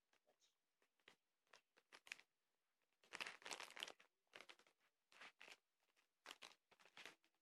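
Plastic candy packaging crinkling quietly in short irregular bursts as it is handled, busiest about three seconds in.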